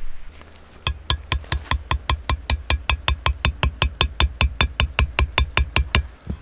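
Metal peg hammer rapidly tapping a metal tent peg into grassy ground, about five quick ringing strikes a second, starting about a second in.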